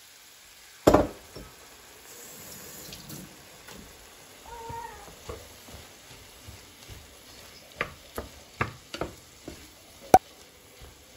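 A wooden spatula stirs and spreads raw rice over diced onion and tomato frying in a nonstick pan, against a low sizzle. In the second half the spatula strikes the pan in a series of sharp taps. There is one loud knock about a second in.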